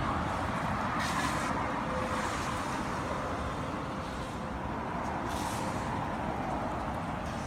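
Steady rushing of strong typhoon wind, with short hissing gusts about a second in and again past five seconds.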